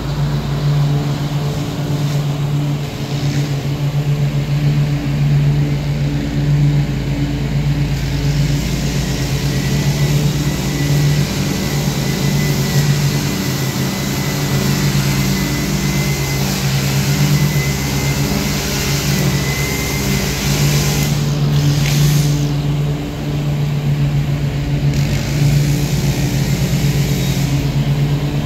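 Ariens Ikon zero-turn mower's engine running steadily as it mows, a constant low drone with a faint high whine through the middle stretch.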